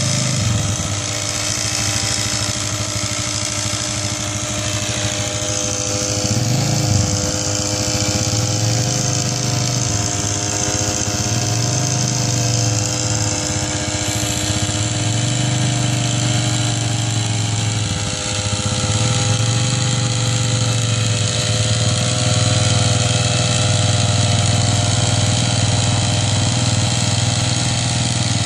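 A quad bike's engine running at low speed while it tows a sprayer, mixed with the steady running of the sprayer's small pump engine. The lower engine note rises and falls several times, with a brief dip about eighteen seconds in.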